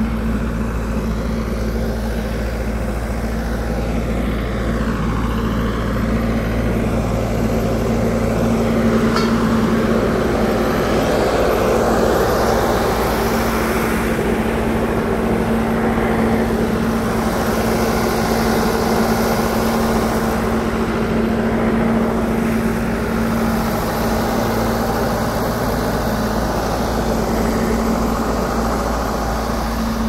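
Steady rumble of road traffic and construction machinery, with a constant low hum running underneath.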